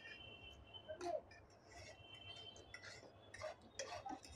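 Light clicks and clinks of a fork or spoon against a plate or bowl while noodles are eaten, a few scattered taps at low level.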